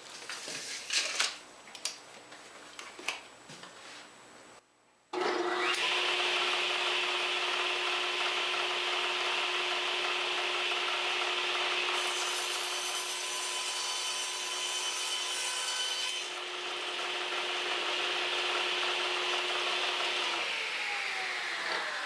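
A few knocks as the plywood panel is handled, then a table saw running at full speed and cutting through the plywood with a steady whine and a strong hiss. Near the end the saw is switched off and its pitch falls as the blade spins down.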